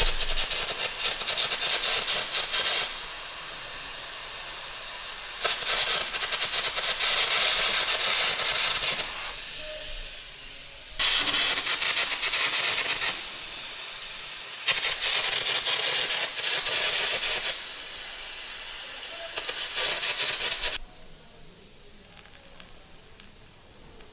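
Loud hissing metalworking noise from a machine shop, in a series of shots that change abruptly every few seconds, then drops to a faint hiss about 21 seconds in.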